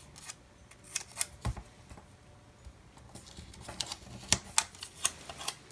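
A paper sticker being peeled and pressed onto a planner page: scattered light clicks and taps of fingers and fingernails on paper, with a brief soft rustle.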